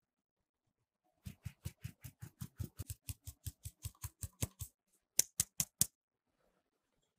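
Fine-mesh metal sieve tapped to sift flour: a quick run of light taps, about five a second, for a few seconds, then four sharper, louder taps.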